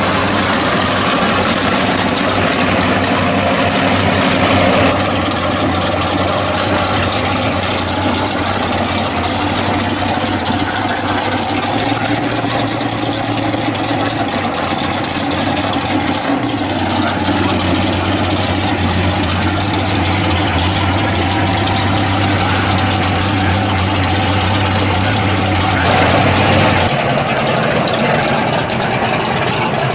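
Drag-race car engines idling, loud and steady with a low rumble; the engine note changes abruptly several times as a different car is heard.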